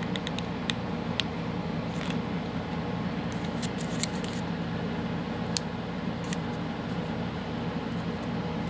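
A steady low background hum with scattered light clicks and ticks, more of them around the middle, from small craft materials (a paper circle and a plastic bottle lid) being handled.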